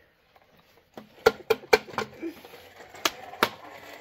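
Sharp knocks: four in quick succession starting just over a second in, then two more about a second later.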